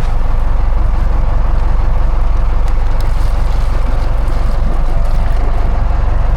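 Sportfishing boat's engine running steadily, a constant low rumble with wind and water noise over it.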